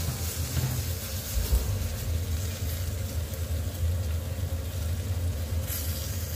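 Chicken pieces sautéing in a pot with a soft sizzle, stirred with a silicone spatula, over a steady low hum.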